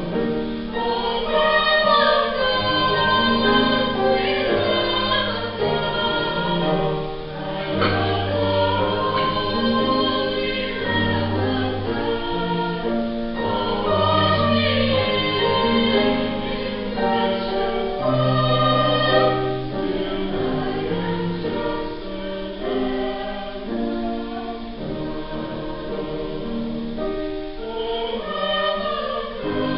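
Small youth choir singing a hymn in parts, with long held low notes beneath the voices.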